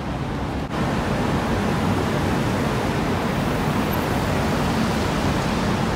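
Steady city street noise: a dense, even hiss with a low rumble underneath. It dips briefly less than a second in, then carries on slightly louder.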